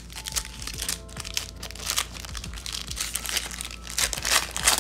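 Foil wrapper of a 2003-04 Pacific Invincible hockey card pack crinkling and tearing as it is peeled open by hand, in irregular rustling bursts that are loudest near the end. Soft background music plays underneath.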